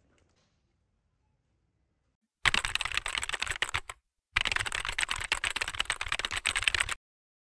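Rapid computer-keyboard typing clicks, a sound effect laid under text being typed out on screen, starting about two and a half seconds in. It runs for about a second and a half, breaks off briefly, then runs on for about two and a half seconds more before stopping abruptly.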